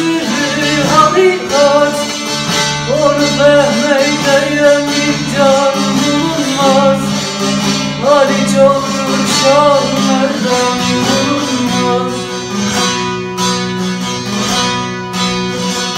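Bağlama (saz) playing a Turkish aşık folk melody, with a man singing long, wavering held notes over it through the first part; near the end the saz plays on with steadier notes.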